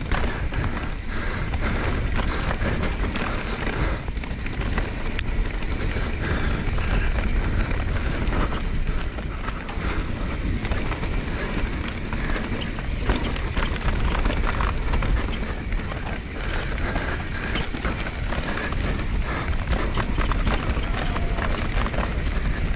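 Mountain bike descending a rough dirt trail at speed: a steady rumble of tyres on dirt and wind on the microphone, with frequent short clatters and knocks from the bike jolting over rocks and roots.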